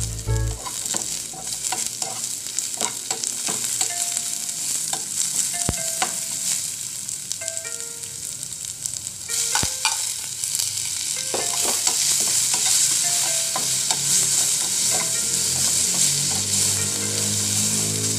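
Garlic, onion and sliced tomatoes sizzling in hot oil in a frying pan, with scattered clinks and scrapes of a metal ladle against the pan. The sizzle gets louder after about eleven seconds, once the tomatoes are in and being stirred.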